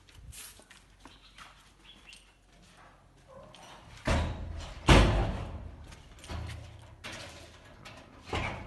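A handful of sudden bumps and thuds, each trailing off with a low rumble, the loudest about five seconds in, after a quieter stretch.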